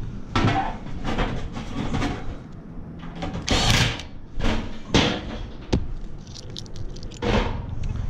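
Handling of tools and sheet-metal parts: a string of irregular knocks, clunks and rustles, with a louder scraping burst about halfway through and a sharp click shortly after.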